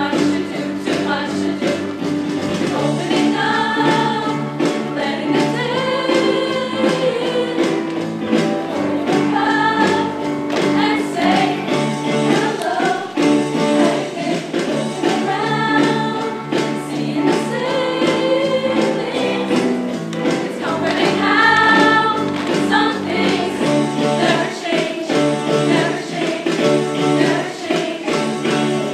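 Girls' choir singing a show tune in harmony through stage microphones, with a solo voice leading at times.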